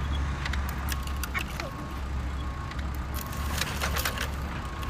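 Clicks and short rattles of hard plastic toy construction vehicles being handled, over a steady low rumble.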